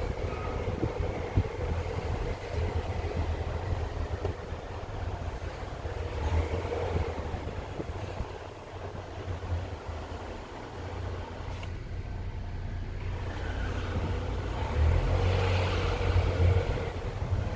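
Volvo XC40 T4 engine running with a knocking sound, which the owner is recording as a fault. It gets louder near the end.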